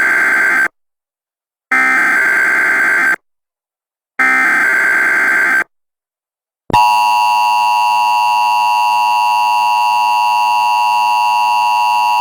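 Emergency Alert System broadcast tones: three short bursts of screeching digital SAME header data, then about seven seconds in the steady two-tone EAS attention signal begins. They announce an emergency alert, here a tornado warning.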